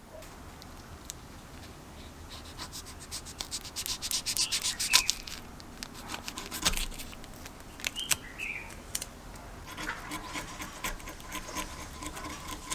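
Hand rubbing and scraping on metal, as in restoration work: quick runs of short strokes, loudest in a burst in the first half, then scattered light clicks and scrapes.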